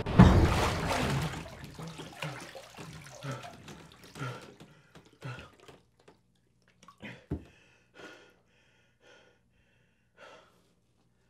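A loud splash of bathwater as a man surges up out of a bathtub, then a run of gasping breaths that grow quieter and further apart, with water dripping.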